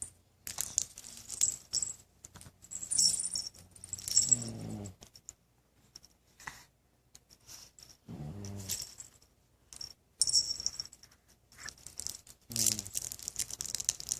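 A man snoring, with a long, noisy snore every few seconds and quiet breaths between.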